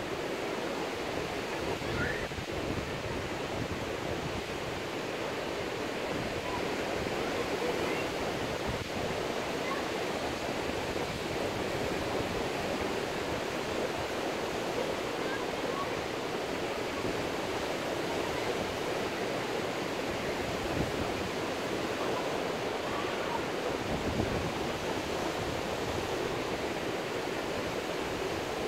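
Ocean surf washing onto a sandy beach, heard as a steady rushing noise.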